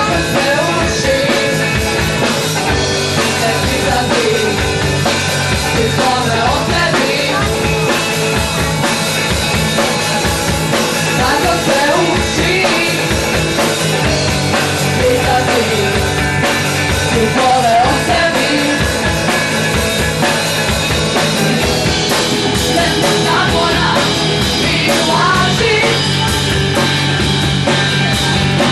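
Punk rock band playing a song: electric guitar, drum kit and singing, loud and without pause.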